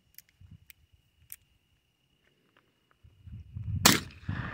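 A .31 caliber black-powder percussion pocket revolver, a Colt Wells Fargo model, fires one loud shot just before the end, and the echo trails off after it. Before the shot there are a few light metallic clicks as the revolver is handled and cocked.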